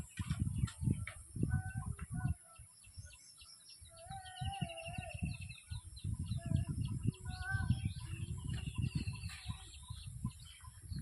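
Birds calling, among them domestic chickens, with a fast trilling call twice and a wavering lower call. A heavy, uneven low rumble lies under them and is the loudest sound.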